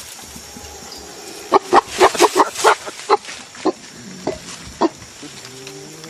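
Eastern lowland gorillas grunting: a quick run of about a dozen short, harsh grunts that thins out, then a lower, wavering call near the end.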